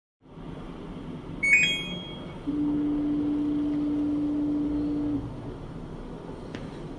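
LG front-load washing machine giving a short electronic beep, then a steady low hum for nearly three seconds.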